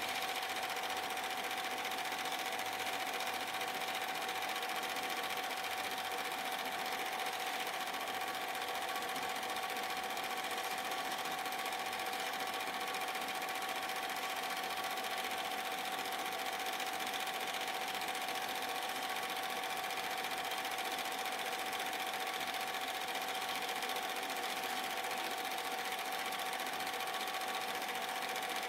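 Super 8 film projector running, a steady mechanical sound with a constant mid-pitched hum.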